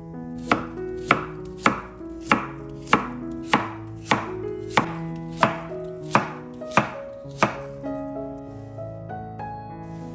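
Knife chopping food on a cutting board in a steady rhythm, about a dozen even strokes a little over half a second apart, then stopping, with background music underneath.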